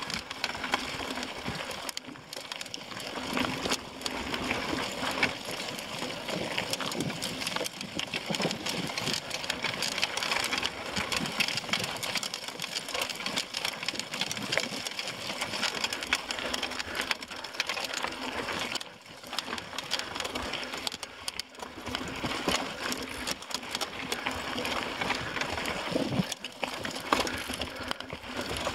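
Mountain bike rattling and clattering as it rides over a rocky dirt singletrack, tyres crunching on gravel and rock, in a dense, continuous clatter that eases briefly twice about two-thirds of the way through.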